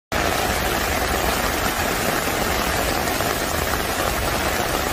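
Heavy rain pouring onto a flooded street with floodwater rushing: a steady, dense hiss that holds level throughout.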